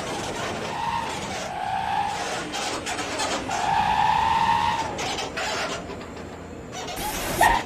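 Bus at the terminal: vehicle noise, with two long high tones about a second each, the second slightly rising then falling. A short burst of hiss comes near the end.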